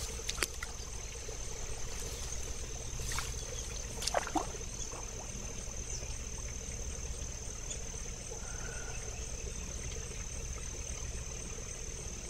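Steady high-pitched insect drone, like crickets, running without a break, with a few brief clicks and knocks about three to four and a half seconds in.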